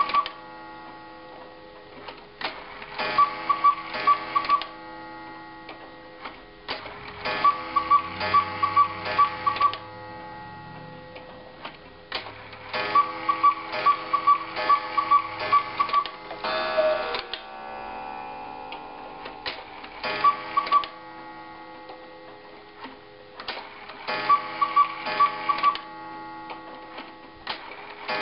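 Antique quail and cuckoo clock ticking while its bellows-blown quail call sounds in repeated bursts of quick piping notes, set off as the minute hand is advanced and paused on each quarter hour. About sixteen seconds in, a single lower cuckoo call follows the quail as the hands reach one o'clock.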